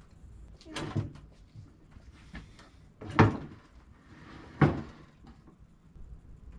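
Three sharp clunks, the middle one loudest, with lighter knocking and rustling between: parts of a DeWalt sliding miter saw being handled and adjusted.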